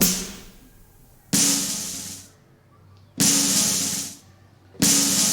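Sampled pop drum kit played one hit at a time: four separate cymbal-like strikes with a drum tone underneath, each ringing and fading out, about one and a half to two seconds apart.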